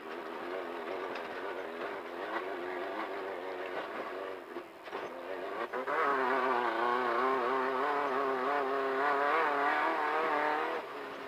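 Engine of a Volkswagen Beetle desert race car running under load, heard from inside the car. Its pitch wavers constantly; about six seconds in it gets louder at higher revs, then eases off shortly before the end.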